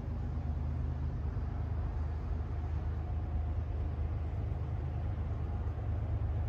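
Loaded coal freight train running past: a steady low rumble with the drone of its diesel locomotives.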